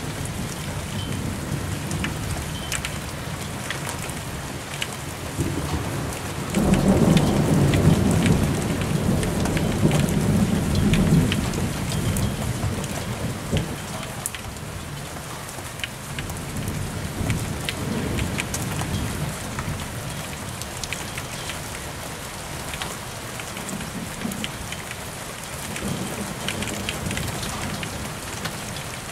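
Thunderstorm: steady rain with single drops ticking close by, and thunder rumbling. A loud roll breaks in suddenly about a quarter of the way through and dies away over about six seconds, and fainter rumbles follow later.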